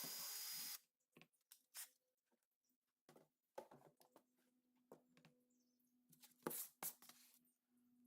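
A power drill boring pin holes through knife handle scales stops under a second in, then near silence with a few faint clicks.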